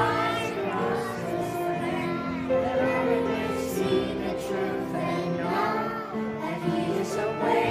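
Young children's choir singing a gospel song together over musical accompaniment.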